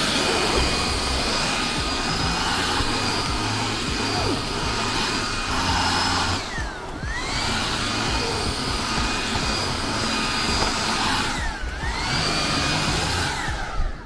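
Xiaomi G10 cordless handheld vacuum with its sofa head running on upholstery: a steady high motor whine over rushing suction. Twice the motor briefly winds down and spins back up, and it cuts off at the very end.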